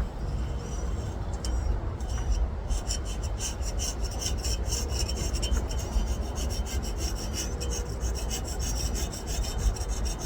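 Rapid rasping, scraping strokes, like a file or brush worked back and forth over the freshly forged hook. A few separate strokes come first, then about two and a half seconds in it settles into a fast, steady back-and-forth rhythm of several strokes a second.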